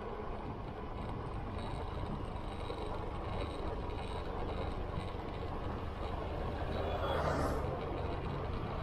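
Motorcycle running steadily at cruising speed, its low engine rumble mixed with wind and road noise. A brief rush of louder noise comes about seven seconds in.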